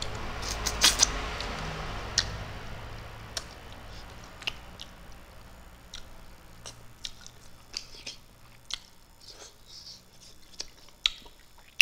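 Mouth sounds of a man eating fish with his fingers: wet lip smacks and chewing clicks, a cluster of sharp ones about a second in, then sparser smacks.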